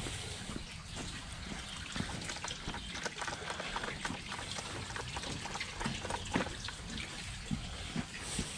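Water trickling and splashing steadily into a pond from a small bucket fountain, with scattered light clicks.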